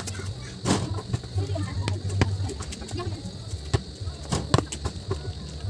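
A basketball bouncing on a hard outdoor court: a few irregular thuds, two in quick succession about four and a half seconds in, over a steady low rumble, with faint voices and bird calls in the background.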